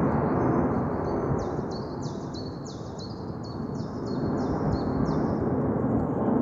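Steady rumbling roar of an aircraft passing overhead, easing off in the middle and swelling again near the end. A bird sings through the middle, a quick run of high, downward-sweeping chirps about three a second.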